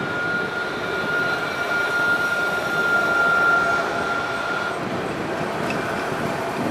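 Alstom Citadis 302 tram passing close by at low speed, its running noise swelling as it goes past. A steady high-pitched whine fades out about two-thirds of the way through.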